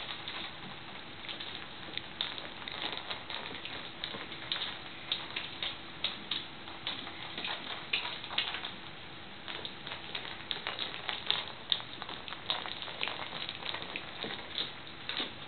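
Italian greyhound rolling and nosing a treat ball, with treats rattling inside: an irregular stream of clicks and taps, several a second.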